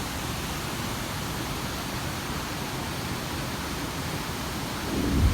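Steady rush of flowing, falling water. A louder low rumble swells in near the end.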